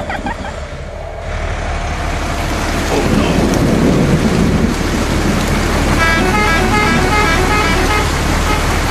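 A vehicle engine running steadily. About six seconds in a run of short horn-like tones starts and goes on for a couple of seconds.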